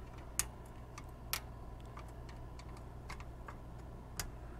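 A screwdriver prying a metal push nut off an RV awning arm's pivot pin: small metallic clicks and ticks, three sharper ones about half a second in, a little over a second in and near the end, with fainter ticks between.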